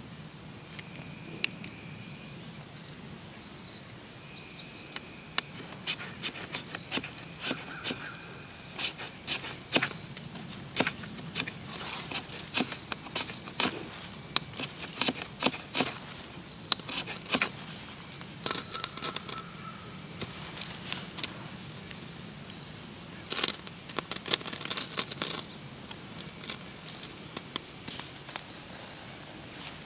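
Crickets chirring steadily and high, over repeated short, sharp scraping strokes of a knife working wood, coming in bursts.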